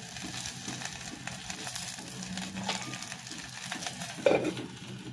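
Oil faintly sizzling and crackling in a small aluminium frying pan as a round of bread dough cooks in it. There is one louder knock of handling about four seconds in.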